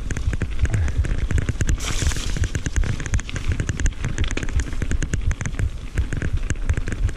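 Mountain bike riding fast down a rough dirt trail, heard from a handlebar-mounted camera: a dense, irregular clatter of rattles and knocks from the bike over the bumps, over the low rumble of the tyres on dirt, with a brief hissing rush about two seconds in.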